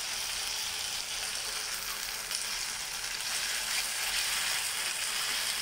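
Sauce sizzling steadily in a hot nonstick pan over sautéed capsicum, spring onion and garlic as it is stirred with a silicone spatula. This is a cornflour-thickened soy and chilli sauce just added to the stir-fry.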